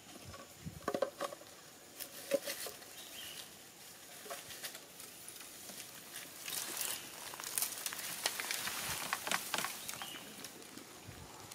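Dry leaf litter rustling and crackling in irregular bursts, with a few sharper knocks in the first couple of seconds and a denser run of crackling in the second half.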